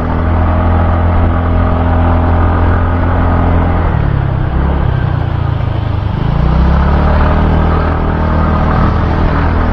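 Motorcycle engine running steadily while riding, with road and wind noise; around the middle its pitch shifts as the throttle changes, then holds steady again.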